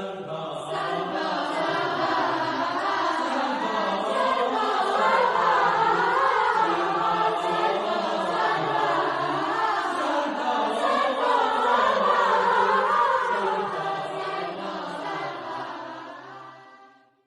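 Choir singing a sacred choral piece, several voices together; it fades out over the last two seconds or so.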